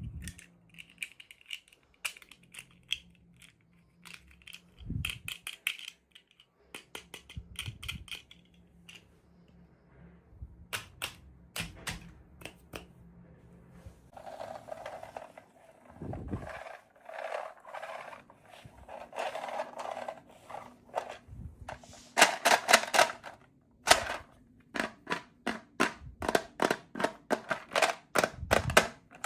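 Hands unboxing small plastic toys: a run of sharp plastic clicks and snaps with stretches of crinkling packaging, the clicks loudest and densest about two-thirds of the way through.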